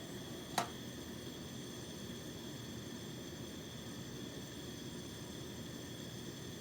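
Steady hiss of a gas torch flame heating an aluminum part toward brazing temperature, with a single sharp click about half a second in.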